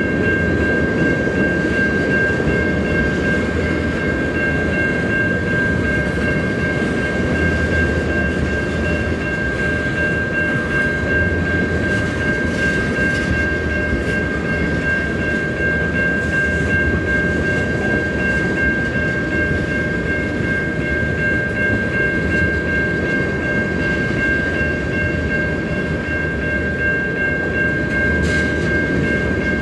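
Freight train of tank cars rolling past: a steady rumble of steel wheels on rail, with a steady high-pitched ringing tone over it.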